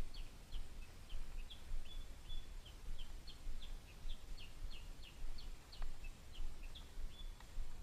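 A bird calling in a steady series of short, high chirps, each dropping quickly in pitch, about three a second, over a low background rumble.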